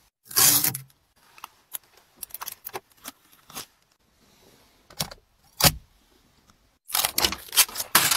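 A car's interior door handle clacking as it is pulled, then scattered light clicks and two knocks, and near the end a dense run of scraping on car glass.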